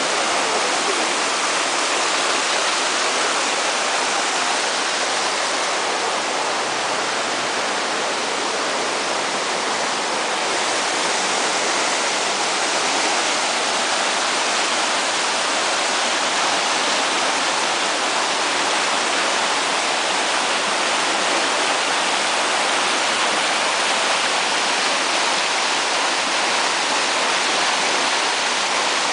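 Cola de Caballo waterfall: water falling and splashing in a steady, even rush.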